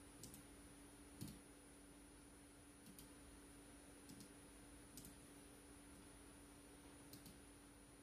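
Faint clicks of small switches on a breadboard being pressed by hand, about six scattered irregularly, some in quick pairs, over a faint steady hum.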